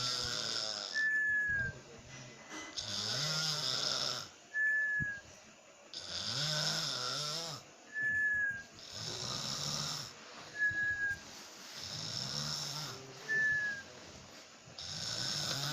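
A person snoring in a steady rhythm, one breath about every two and a half to three seconds. Each snore is followed by a short, high, falling whistle.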